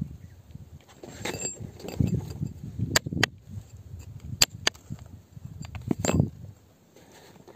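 A metal rod scraping and picking at crumbly weathered rock, with several sharp clinks of metal on stone: two about three seconds in, two more a second and a half later, and one near six seconds.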